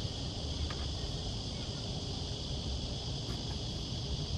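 Steady high-pitched insect drone over a low wind rumble, with a few faint small clicks.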